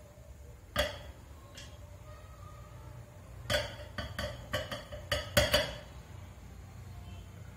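Stainless-steel mixer jar clinking against glass and metal: one sharp knock about a second in, then a quick run of about eight clinks a couple of seconds later.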